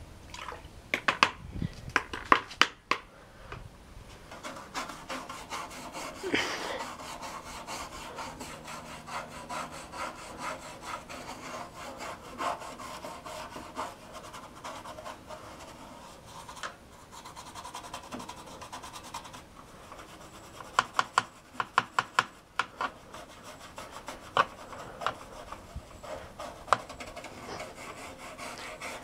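A brush scrubbing dirt off a plastic computer case, a steady rough rubbing with quick back-and-forth strokes. Two bursts of sharper, faster strokes come about a second in and again about two-thirds of the way through.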